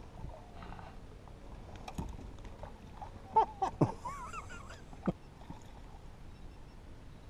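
Sharp clicks and knocks of spinning-rod tackle being handled aboard a fishing boat, loudest in a quick cluster of three about halfway through. A brief warbling whistle follows the cluster.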